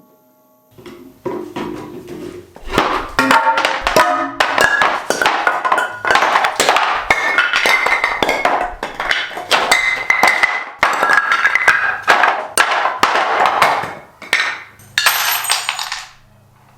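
Upbeat music with a strong percussive beat. It starts softly about a second in, comes in fully a couple of seconds later, and stops just before the end.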